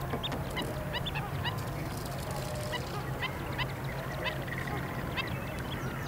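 A flock of waterbirds calling: a steady scatter of short honking and chirping calls, over a steady low hum.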